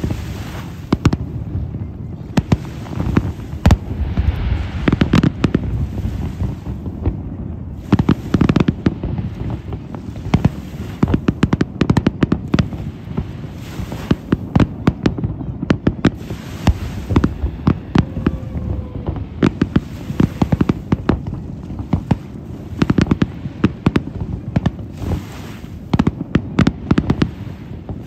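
Fireworks display: a continuous barrage of aerial shell bursts, many sharp bangs a second in quick succession over a steady low rumble.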